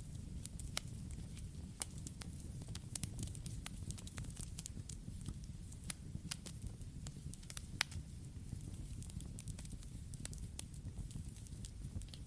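Campfire burning with a steady low rumble of flames and frequent irregular crackles and sharp pops, a few louder pops standing out.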